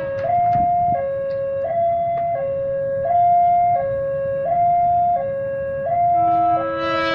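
Railway level-crossing warning alarm sounding its two-tone signal, switching between a higher and a lower note about every 0.7 seconds, warning of an approaching train. A second, lower steady tone joins about six seconds in.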